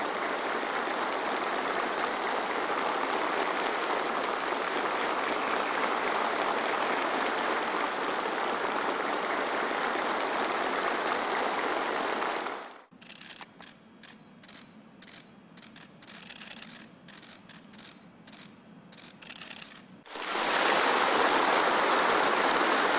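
A large crowd of soldiers applauding steadily. About halfway through the applause cuts off abruptly, leaving several seconds of quieter scattered clicks. Louder applause then resumes near the end.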